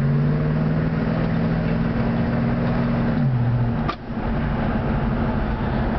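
Oldsmobile 455 Rocket V8 running as the car cruises, heard from inside the cabin. Its note drops about three seconds in, and there is a brief dip with a short click about a second later.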